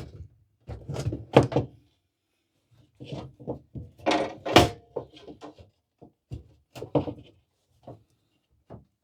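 Irregular thuds and knocks of a metal electric stove being handled and shifted while it is propped up for repair, with a brief metallic ring about halfway through.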